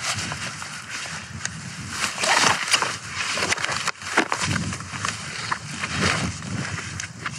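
A backpack being closed and swung onto the back: fabric and straps rustling, with sharp clicks and knocks of buckles and gear, then footsteps on grass.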